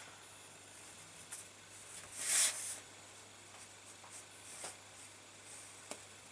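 Pencil drawing on a paper template lying on a cutting mat: faint scratching, with one louder, longer stroke about two seconds in and a few light taps.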